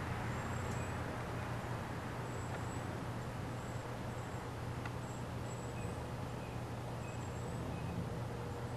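Steady low hum, with faint, short high-pitched peeps repeating every second or so.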